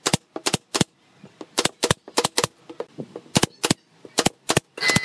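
Pneumatic brad nailer firing nails into a pine frame: a dozen or so sharp shots, often in quick pairs, with a short hiss near the end.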